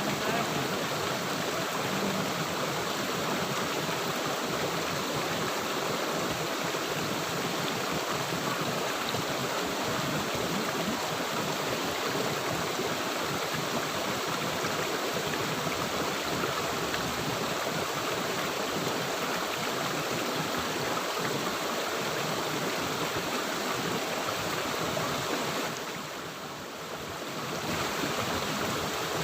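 Steady rush of flowing river water, dropping briefly in level a few seconds before the end.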